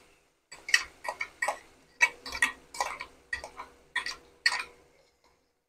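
Hot mustard oil spitting and popping as wet red chilli paste fries in it: sharp, irregular pops, roughly two a second, thinning out near the end as the paste's moisture cooks off.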